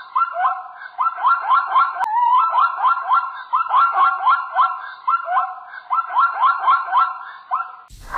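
An animal calling in quick rising chirped notes, in bursts of four or five about once a second. The calls stop abruptly near the end.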